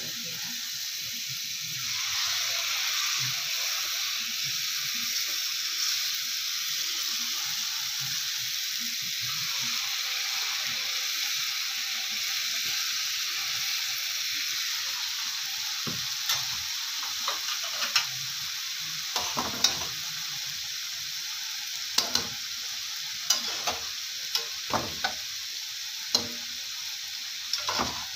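Jalebi batter deep-frying in hot oil in a steel pan: a steady sizzle that grows louder about two seconds in. From about halfway through come scattered sharp clicks and pops.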